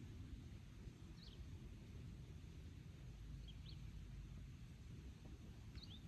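Quiet open-air ambience with a faint low rumble and a few brief, faint bird chirps: one about a second in, a pair around three and a half seconds, and another near the end.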